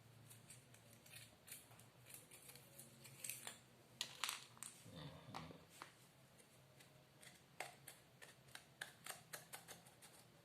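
Faint scattered clicks, light knocks and a short scrape: the plastic casing and internal parts of a hair dryer being handled as it is taken apart.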